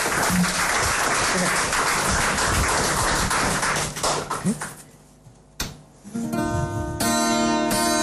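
Studio audience applause that dies away after about four seconds, a short near-quiet gap and a click, then about six seconds in an acoustic guitar and keyboard start playing the intro of a pop song live.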